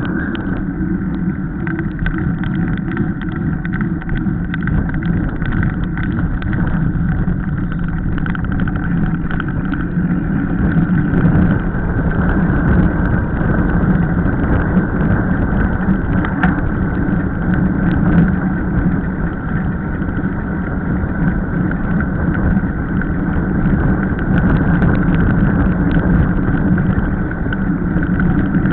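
Steady rush of wind and tyre noise from a mountain bike descending fast on an asphalt road, with many small clicks and rattles over the rough surface.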